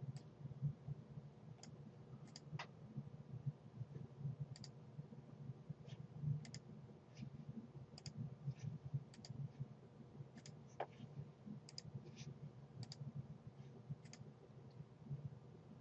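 Computer mouse clicking at scattered moments, some clicks in close pairs, over a faint low hum.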